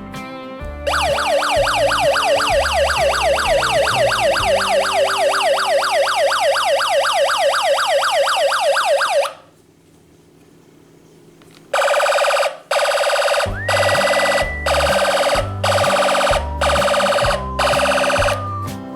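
Electronic police siren from a toy ride-on police motorcycle's sound panel, in a fast warbling yelp of quick rising and falling sweeps for about eight seconds. After a short lull it gives a run of pulsed electronic horn blasts, about one a second, with background music underneath.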